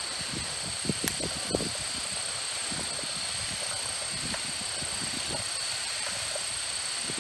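Steady outdoor hiss with an even high-pitched drone, and a few faint clicks about a second in from hands handling wire connectors at the junction box.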